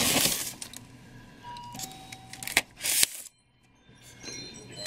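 Hands handling a tape-sealed styrofoam shipping container, with low rustling and two short, loud scrapes a little past halfway. The sound then cuts out completely for under a second before faint handling resumes as scissors are put to the tape.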